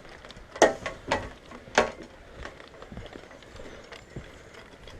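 Airsoft gun firing single shots: three sharp pops about half a second apart, with fainter clicks around them.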